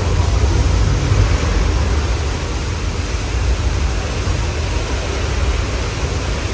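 Backlot tour tram rolling along, a steady low rumble with wind noise over the microphone.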